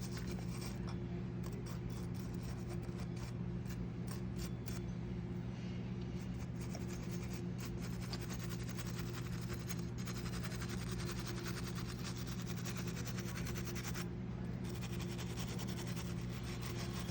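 A steady low hum with light scratching and rubbing over it throughout.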